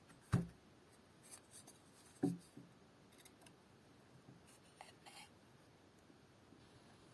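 Hand woodcarving on a birch ax handle: two sharp knocks about two seconds apart, then a few faint, short scraping cuts of a tool on the wood.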